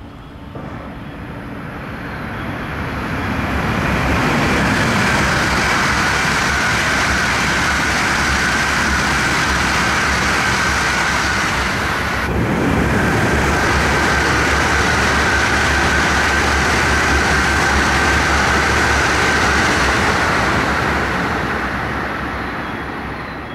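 E956 ALFA-X Shinkansen test train passing through a station at high speed: a rush of wind and wheel noise that builds over the first few seconds and holds loud. About twelve seconds in it breaks off abruptly and a second loud pass follows, fading near the end as the train draws away.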